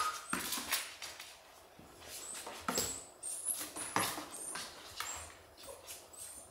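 A golden retriever puppy scrabbling inside a plastic storage tub: a busy run of short scratches and knocks of claws on plastic, with brief high squeaks among them.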